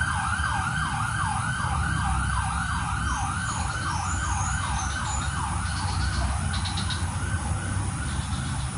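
Emergency vehicle siren in a fast yelp pattern, its pitch sweeping up and down about three or four times a second, over a low traffic rumble.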